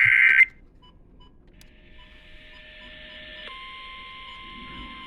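The tail of an Emergency Alert System SAME header data burst: a loud, harsh digital warble of two rapidly alternating tones near 1.5 and 2 kHz that cuts off about half a second in. It is followed by faint steady electronic tones over hiss, which drop to a lower tone about three and a half seconds in.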